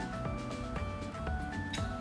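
Background music: a melody of short notes, changing about four times a second, over a bass line with a steady beat.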